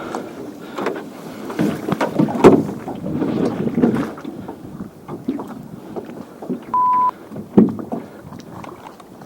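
A small boat being rowed: oars knocking against the hull and splashing in the water, with wind on the microphone. A short steady beep sounds about seven seconds in.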